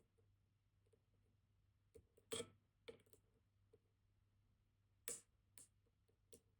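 Faint, irregular metal clicks of a dimple-lock picking hook working the pins of a Vachette Radial high-security dimple lock, about six in all, the loudest about two and a half seconds in.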